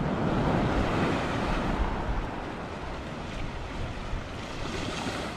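Ocean surf washing in, louder for the first two seconds or so and then easing to a steady lower wash.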